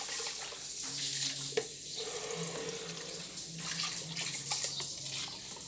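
Watery passion fruit mixture splashing and trickling as a metal spoon stirs it through a plastic sieve into the container below, with one light knock about a second and a half in.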